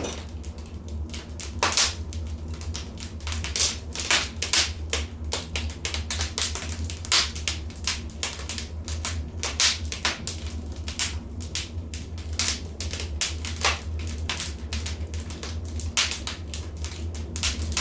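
Wood fire crackling in a fireplace: irregular sharp pops and snaps, a few a second, over a steady low rumble.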